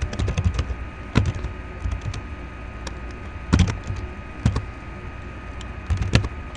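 Typing on a computer keyboard: irregular keystroke clicks, a quick run near the start and then a few single, harder key presses spaced a second or so apart, over a steady low background hum.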